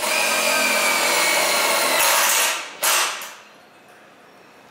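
Cordless drill driving a self-drilling screw into galvanized steel C-channel: the motor whines as the drill point cuts through the steel, the whine sinking slightly in pitch for about two and a half seconds before stopping. A short second burst follows just before three seconds in.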